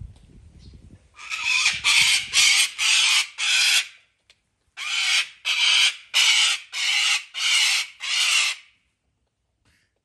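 Sulphur-crested cockatoo screeching: two runs of loud, harsh calls, about five in the first and six in the second, each roughly half a second long, with a short pause between the runs.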